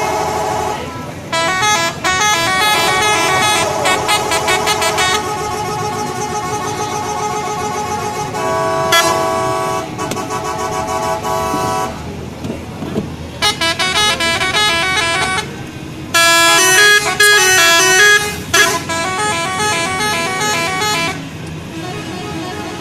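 Indonesian bus 'telolet' musical horn playing quick runs of changing notes in repeated phrases, with held chords between them and a short break about twelve seconds in. The loudest phrase comes about sixteen to eighteen seconds in.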